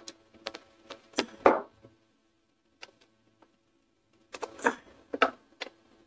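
Irregular small metallic clicks and taps of a screwdriver and spanner working screws into a ceiling fan's metal motor housing during reassembly, the loudest about a second and a half in.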